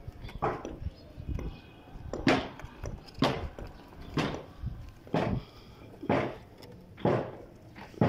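Footsteps on hard ground, a regular run of dull thuds about one a second.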